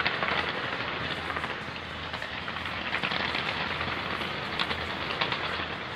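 A dense, continuous barrage of fireworks crackling and popping, with a few sharper bangs standing out about three and five seconds in.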